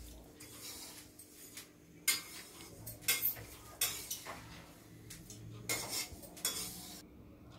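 Metal spoon scraping and stirring sesame seeds as they are dry-roasted in a steel kadhai, in irregular strokes about once a second.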